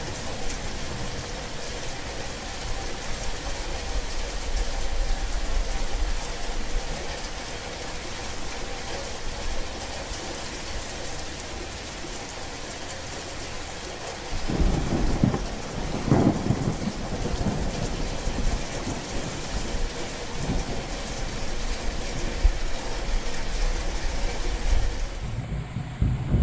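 Steady rain in a thunderstorm. About halfway through a low thunder rumble rolls in, swells for a couple of seconds and fades out slowly, and another rumble begins near the end.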